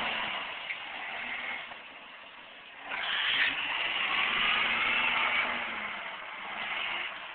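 Suzuki 4x4's engine revving under load as it pulls through snow in four-wheel drive. It eases off about two seconds in, revs up hard again about three seconds in, then dies away near the end.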